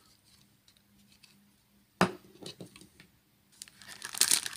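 A single sharp knock about halfway through, as the plastic wall charger is set down on the table, with a few small clicks after it. Near the end, plastic bag wrapping starts crinkling as packed parts are lifted from the box.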